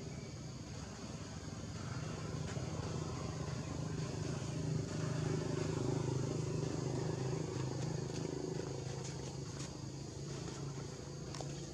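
A motor vehicle's engine running, growing louder toward the middle and fading again as it passes. A few light ticks near the end.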